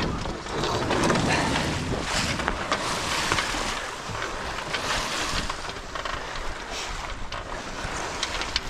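Water rushing along the hull of a C&C 27 sailboat under sail, mixed with wind buffeting the microphone, a steady rushing hiss with a few light ticks.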